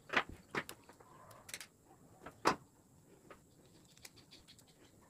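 A few sharp plastic clicks and taps, the loudest about two and a half seconds in, then faint scattered ticks: a screwdriver and a white plastic 3-pin plug top being handled as the red phase wire is fitted to its terminal.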